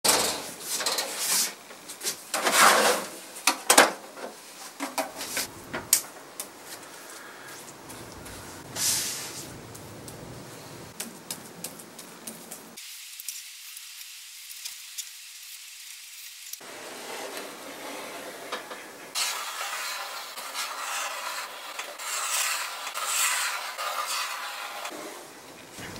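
A metal storage cabinet is opened, with knocks and clatter of tins in the first few seconds. Then a brush works paint stripper over a varnished drawer front with a steady scrubbing sound. Near the end a scraper scrapes off the softened old finish in short strokes.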